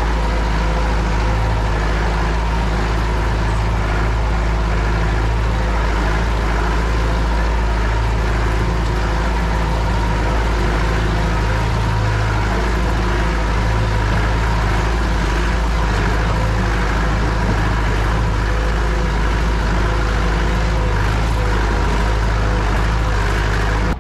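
Off-road jeep's engine running with a heavy, steady low rumble as the jeep drives along a rough forest track, the engine note rising and falling a little from moment to moment.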